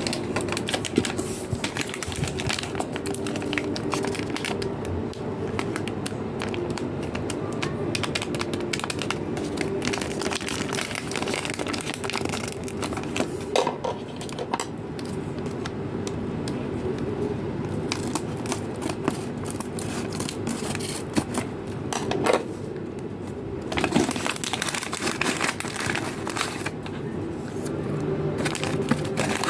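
Plastic blind-bag packaging crinkling and crackling as it is handled and torn open, with many small sharp clicks, over a faint steady low hum.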